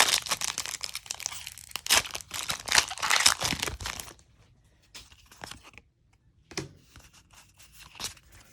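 Foil booster-pack wrapper of a Pokémon trading card pack crinkling and being torn open for about four seconds. After that come a few faint rustles and ticks as the cards are handled.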